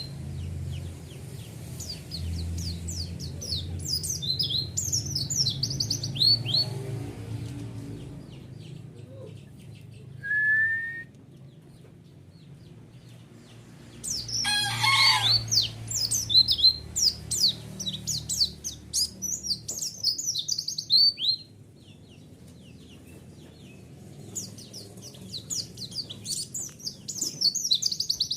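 White-eye (pleci) song: phrases of rapid, high, falling chirps with short pauses between them, played as a lure call. About halfway through comes one louder, lower sweeping call.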